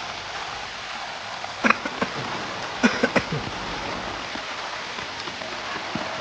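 Steady hiss of heavy rain falling. About one and a half to three and a half seconds in, several short sharp sounds cut through it.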